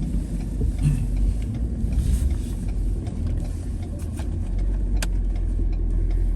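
A car driving, heard from inside the cabin: a steady low rumble of engine and road noise, with a sharp click about five seconds in.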